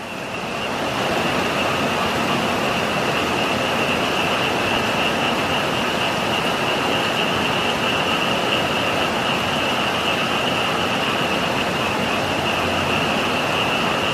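Heavy rain falling steadily, with a dense chorus of frogs calling continuously over it as one unbroken high-pitched trilling band.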